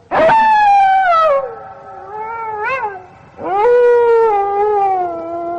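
A cat meowing in drawn-out calls that slowly fall in pitch: a long loud one at the start, a shorter, quieter one in the middle, and a second long one that starts about three and a half seconds in.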